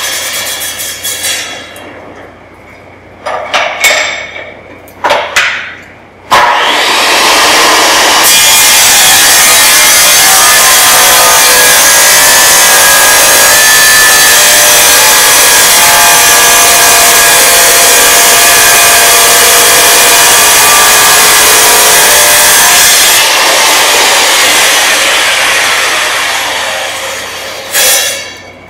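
Sliding-table wet tile saw cutting ceramic tile, plausibly a 45-degree miter cut. A few knocks come as the tile is set, then the motor starts suddenly about six seconds in and the blade runs through the tile for about fifteen seconds. The saw is then shut off and spins down over a few seconds, with one more knock near the end.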